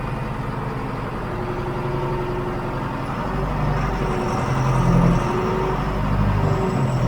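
John Deere 410 backhoe loader's diesel engine running steadily while working, briefly swelling in loudness about five seconds in.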